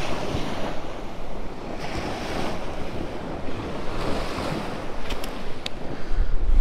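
Surf washing onto a sandy shore with wind on the microphone, the wash swelling and easing every second or two. A few faint clicks come about five seconds in, and the wind rumble grows heavier near the end.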